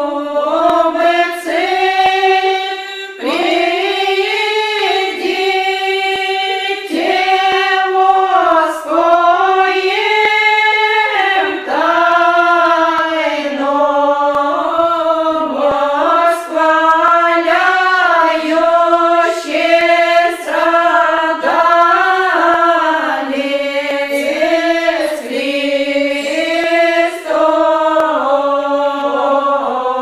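Women's church choir singing an unaccompanied chant, all voices on one melody line, in slow phrases of long held notes that slide from pitch to pitch.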